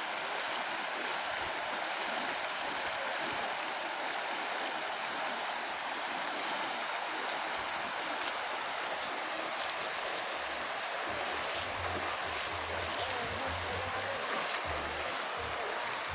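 Shallow river rushing over rocks: a steady wash of flowing water. Two sharp clicks, a little over a second apart, about halfway through.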